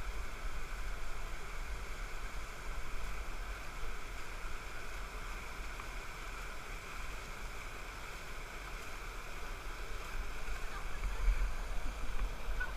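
Steady rush of a mountain valley stream, with an uneven low rumble of wind on the microphone.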